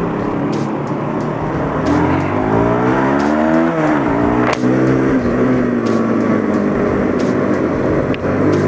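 Motorcycle engine under way while riding. The pitch climbs as it accelerates, drops suddenly at a gear change about four seconds in, then holds steady, with wind rushing over the microphone.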